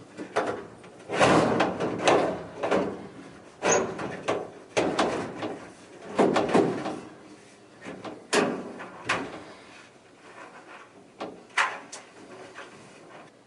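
Sheet-metal dryer drum and cabinet clunking, knocking and scraping in irregular bursts as the drum is worked loose against the drive belt's tension. The loudest knocks come about a second in, near the middle and around eight seconds in.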